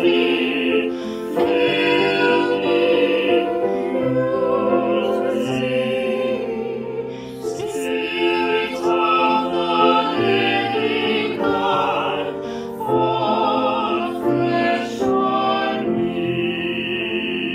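Music: singing in a trained, operatic style, with long sustained notes over instrumental accompaniment, ending on a held note.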